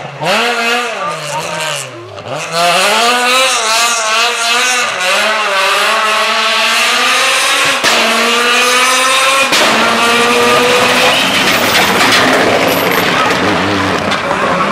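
Rally car engines at full throttle. The pitch drops and rises as a car slows into a corner, then climbs in repeated sweeps through the gear changes as it accelerates away. About 9.5 seconds in the sound switches abruptly to another car, with more tyre and gravel noise over the engine.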